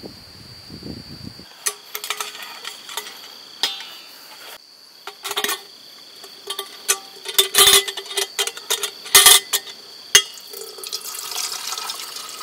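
Clinking and clattering of a stainless steel kettle being handled. Near the end, water runs from the tap of a plastic water jug into the kettle with a steady splashing hiss.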